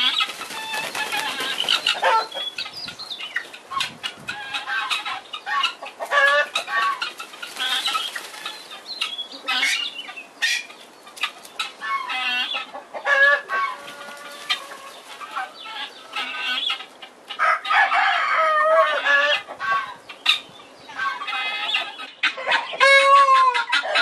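Farmyard chickens clucking and a rooster crowing, mixed with the rustle of a peacock shaking its fanned train. Near the end come loud, repeated peacock calls.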